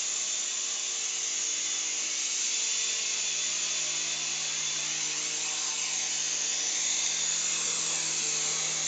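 Small indoor remote-control toy helicopter's electric motors and rotor blades whirring steadily, with a high hiss, as it hovers low over the floor before landing.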